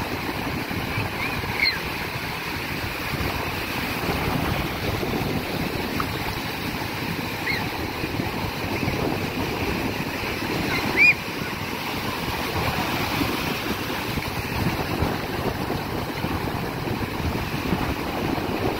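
Sea waves washing and breaking close by, a steady rushing noise. A few brief high chirps sound over it, the loudest about eleven seconds in.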